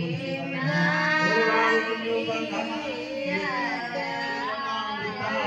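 A devotional song: singing with musical accompaniment, the voice holding and bending long notes.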